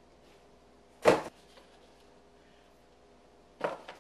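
A sharp thump about a second in and a second, rougher knock near the end, as a shoe and a cardboard shoebox are set down and picked up; faint room tone between.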